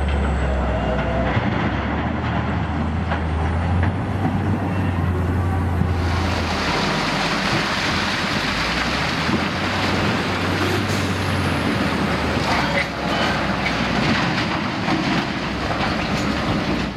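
Heavy mining machinery running: a steady low engine rumble, joined about six seconds in by louder, harsher mechanical noise with scattered clanks.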